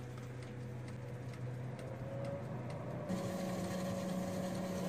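Cuisinart TOA-60 air fryer toaster oven running in air-fry mode: its convection fan motor gives a steady hum, which jumps to a higher-pitched hum with more rushing air about three seconds in.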